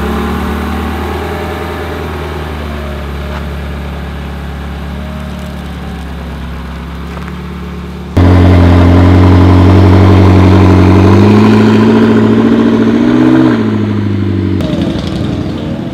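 Sports car engines: first one idling steadily, then, after an abrupt cut about eight seconds in, a louder McLaren engine running on light throttle as the car creeps across grass. Its pitch rises over a couple of seconds and falls away near the end.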